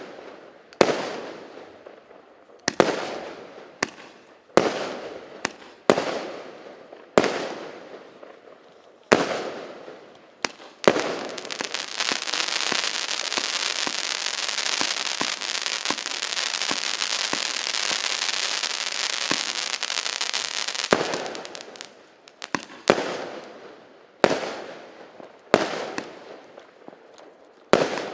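A 169-shot, 0.8-inch firework cake firing: single shell bursts about once or twice a second, each bang trailing off, then about ten seconds of dense continuous crackling, then spaced single bursts again near the end.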